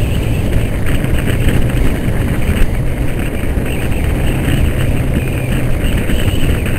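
Honda CB500 motorcycle's parallel-twin engine running at steady road speed, heard through a helmet camera's microphone under heavy wind buffeting.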